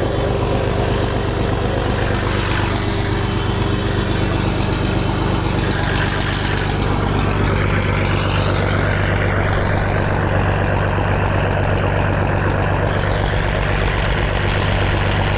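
Large vehicle engine running steadily close by, a low, even drone whose note shifts slightly about halfway through.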